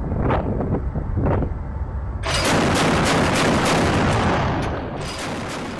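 Wind buffeting the microphone, then about two seconds in a burst of repeated shots from a ship-mounted Mk38 gun's 25 mm M242 Bushmaster chain gun, the reports echoing and fading away.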